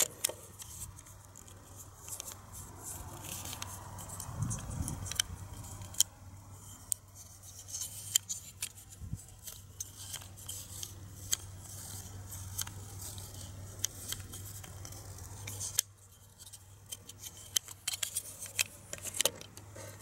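Irregular small clicks and clacks of a toy pistol's slide and frame parts being handled and fitted together, over a steady low hum.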